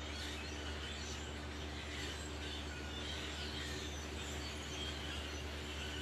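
A large flock of blackbirds calling in the treetops: a continuous mass of overlapping chirps, over a steady low hum.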